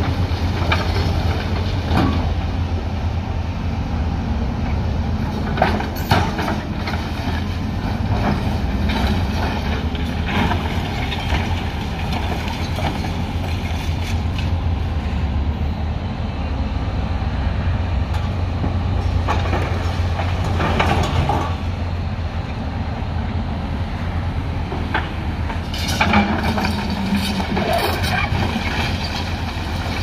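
Hyundai crawler excavator's diesel engine running steadily, with several bursts of clattering and crashing as its bucket works and drops broken concrete blocks and rubble.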